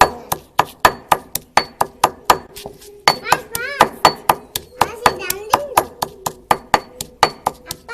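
Steady rhythmic knocking of a hand utensil striking plant material on a hard surface, about three sharp strikes a second. There is a brief high warbling sound twice near the middle.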